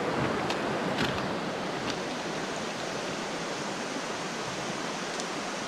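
Creek water running over rocks: a steady, even rushing hiss. A few faint clicks sound in the first two seconds.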